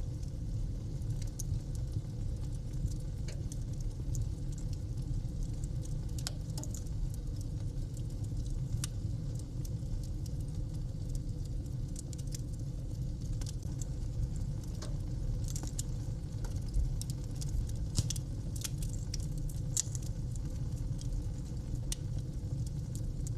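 Wood fire burning in a fireplace: a steady low rumble with irregular sharp crackles and pops, coming more thickly for a few seconds past the middle.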